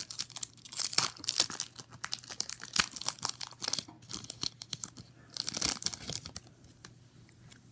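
Foil wrapper of a Pokémon booster pack being torn open and crinkled by hand: a dense run of crackling and tearing that dies away about six and a half seconds in.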